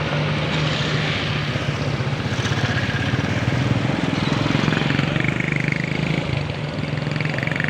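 Vehicle engine running steadily under heavy wind and road noise, recorded on the move in traffic.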